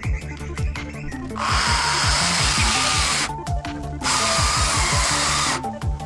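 A chainsaw running at high revs in two bursts, each about two seconds long, over background music with a steady beat.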